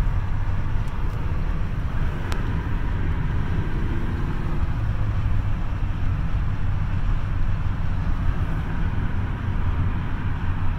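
Steady road and tyre rumble inside a moving car's cabin, with a single click about two seconds in.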